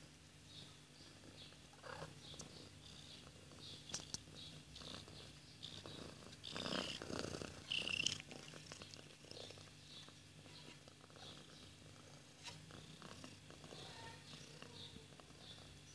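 Cat purring steadily, with a louder stretch of scratching and scuffling noises from about six to eight seconds in.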